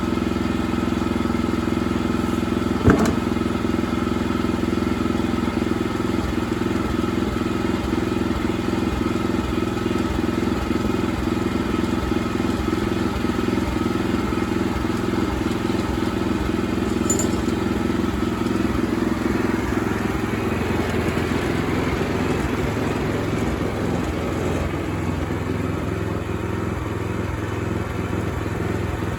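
Sawmill engine running steadily, with one sharp knock about three seconds in; about two-thirds of the way through the steady drone turns rougher and noisier.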